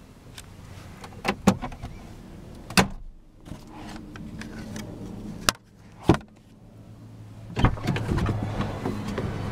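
Sharp plastic clicks and knocks from a car's interior trim being handled: the sun visor is flipped and worked, then the inside door handle is pulled. About six separate clicks, with a low steady hum beneath that grows louder near the end.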